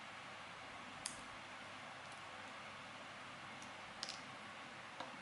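A few light clicks over a faint steady hiss, about a second in, a pair near four seconds and one near the end: small metal parts of a disassembled padlock being handled.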